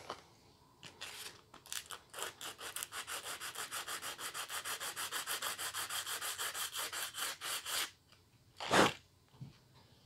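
A small guitar-nut shim rubbed back and forth on 180-grit sandpaper by hand, in quick, even strokes of about seven a second for some six seconds, to take a little more off its end so it fits the nut slot. Near the end comes a single short whoosh, louder than the sanding.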